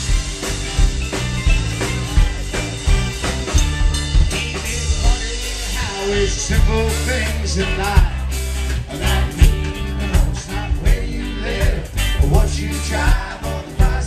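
Live band playing a country-rock song on drum kit and guitars, amplified through PA speakers, with a steady drum beat and a lead melody line that comes forward in the second half.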